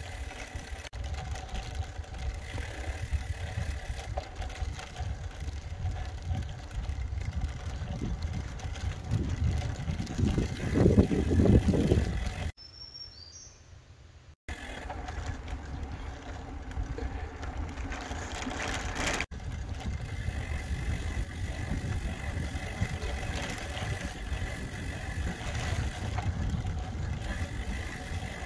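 Steady road and wind rumble from a slowly moving vehicle on a road. It breaks for a quieter moment about halfway, with one short high chirp, then resumes.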